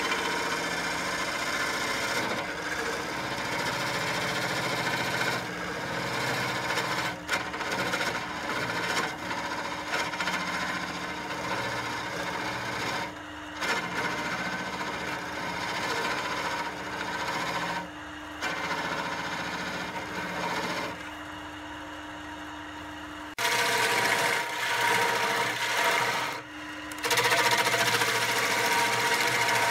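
Wood lathe running with a steady hum while a hand-held turning chisel cuts the spinning pine vase, a continuous scraping hiss of the tool on the wood. The cutting breaks off briefly several times and comes back.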